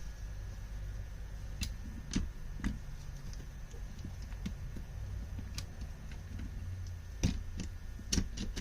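Scattered light clicks and taps of small metal carburetor parts being handled and fitted together, over a low steady hum; about half a dozen clicks, three in the first few seconds and a cluster near the end.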